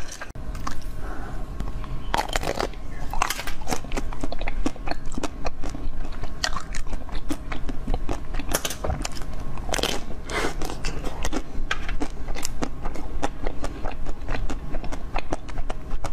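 Close-miked biting and crunching through frozen sweets: many quick, irregular, crisp crunches and cracks, with a few louder bites among them.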